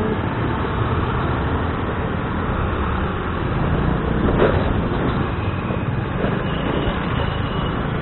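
Honda Dio scooter's single-cylinder engine running at low speed with road and street traffic noise, a steady rumble; a brief short sound cuts in about halfway through.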